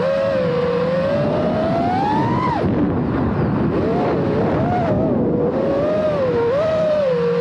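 FPV quadcopter's electric motors and propellers whining. The pitch climbs steadily, drops sharply about two and a half seconds in, then wavers up and down with the throttle.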